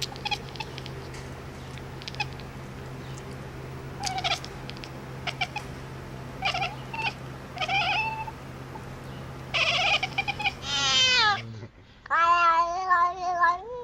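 Domestic cat meowing several times, with short calls first and then louder, longer wavering meows near the end. A steady low hum runs underneath and stops shortly before the last call.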